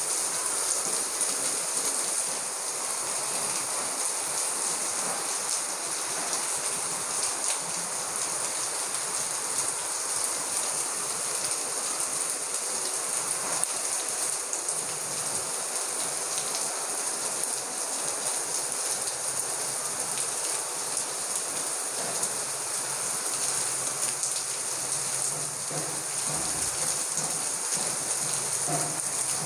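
Heavy rain pouring down and drumming on surfaces, a steady, even hiss that holds without a break.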